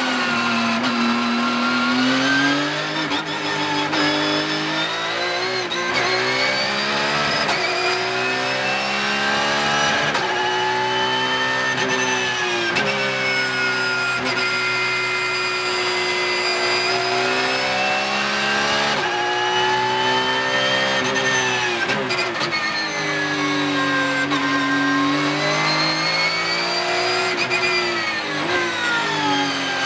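Porsche 911 (992) GT3 Cup car's flat-six engine heard from inside the cockpit at racing pace, its pitch climbing hard through upshifts and dropping under braking and downshifts, several times over.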